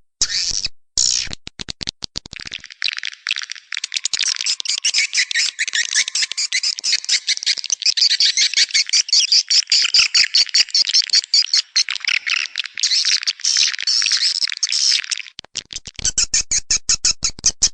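Swiftlets twittering: a dense, fast stream of high chirps, with harsher rapid clicking in the first two seconds and again near the end. This is the kind of swiftlet call sound used to lure birds into a swiftlet house.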